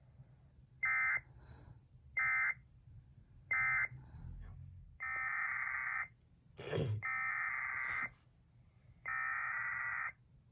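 EAS digital data bursts: three short screeching bursts of the end-of-message code close out one alert, then three longer bursts of the next alert's header code follow, each about a second long. A brief falling chirp comes just before the second long burst.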